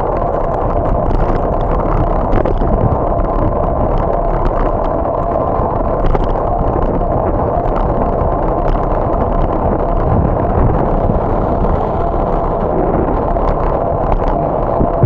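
Bicycle rolling along a paved street, with steady wind rumble on the bike-mounted microphone, road noise and scattered light rattling clicks.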